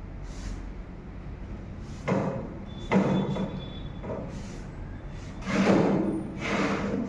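Short rubbing and handling sounds as the test specimen is cleaned after liquid penetrant testing: four brief scrapes, with a sharp knock about three seconds in.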